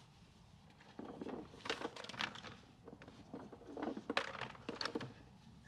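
Gear being handled and shifted about in a pickup's truck bed: scattered knocks, clicks and rustling, the sharpest knock about four seconds in.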